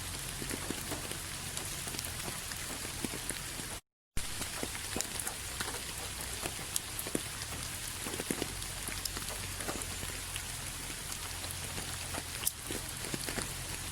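Steady rain falling, with many close individual drops ticking on a surface over an even hiss. The sound cuts out completely for a split second about four seconds in, then resumes.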